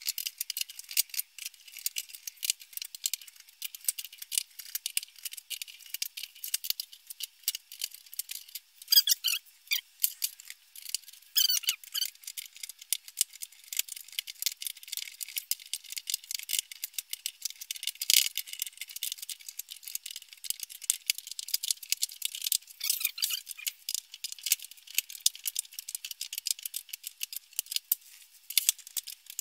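18650 cells clicking and rattling as they are pushed into plastic cell holders and set down on the table, in fast-forward, so the clicks come thick and quick and sound thin and high. A few louder clacks stand out.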